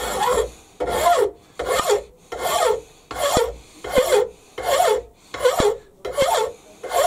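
A flat hand file worked back and forth across the end face of a cast Stuart S50 model steam engine cylinder held in a bench vise: an even run of about ten filing strokes, roughly one every 0.7 seconds. It is dressing the casting's rough end face flat.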